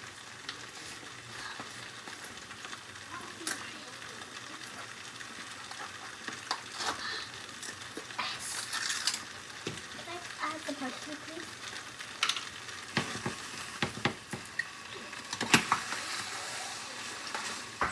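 Lobster pasta in sauce sizzling in a frying pan on the heat, with a steady hiss. A metal spoon clinks and scrapes against the pan every few seconds as it is stirred.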